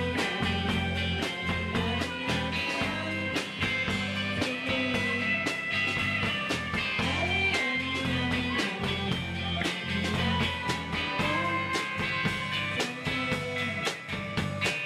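Live rock band playing: electric guitar over a drum kit beating a fast, steady rhythm, with a full, sustained low end.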